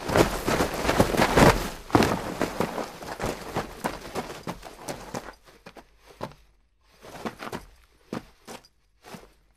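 Loose volcanic cinders crunching and scraping as a person tumbles down the slope, dense for about five seconds, then thinning to a few separate footstep crunches on the gravel.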